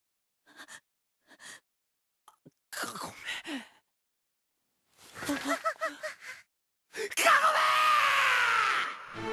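A young man's voice straining against restraint: short gasps, then effortful groans and grunts, and near the end a long, loud scream of "Kagome!" that falls in pitch.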